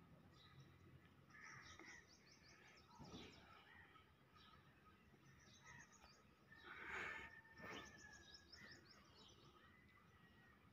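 Near silence: faint birds chirping in quick high trills, with soft scrapes of a hand sweeping dry sand, the loudest about seven seconds in.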